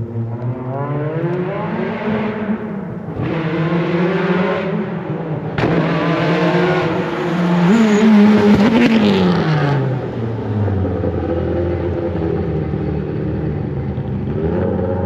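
Race car engine pulling away under acceleration, its pitch climbing in several runs with breaks between them, like gear changes. About nine seconds in it drops away, and it settles to a lower steady note.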